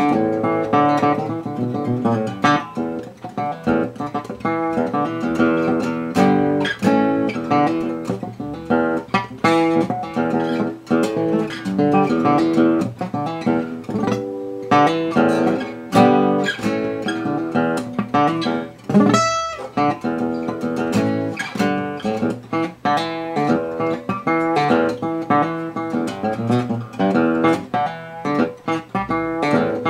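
A 1945–46 Gibson LG-2 small-bodied flat-top acoustic guitar played solo, with a steady run of picked notes and chords.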